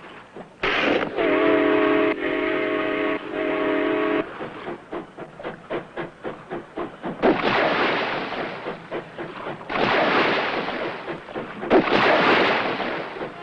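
Cartoon sound effects: a whistle chord held for about three and a half seconds, then a quick run of chuffing puffs, then three long hissing blasts.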